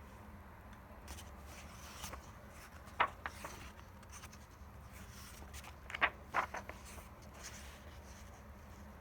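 Paper pages of a children's book being handled and turned, rustling softly with sharper crackles about three seconds in and a cluster around six seconds in, over a faint steady hum.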